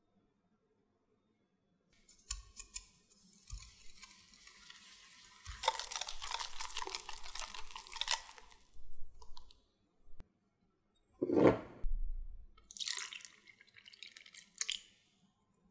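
Wire whisk beating egg yolk, sugar and cornstarch into a thick paste in a glass bowl, a dense scratchy stirring with fine clicks of the wires on the glass. About two-thirds of the way in there is one loud short knock, and near the end milk pours into the bowl.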